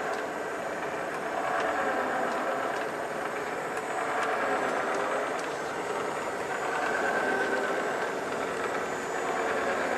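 Factory machinery running steadily: a continuous mechanical drone with several steady mid-pitched tones, swelling and easing every two to three seconds, with a few faint ticks.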